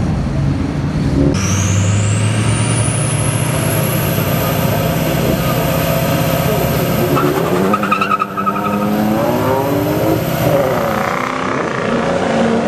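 Turbodiesel pickup trucks at a drag-strip start line, engines running loud. A high turbo whistle rises over a few seconds as they build boost. About eight seconds in the trucks launch, and the engine pitch climbs in repeated rises as they accelerate away.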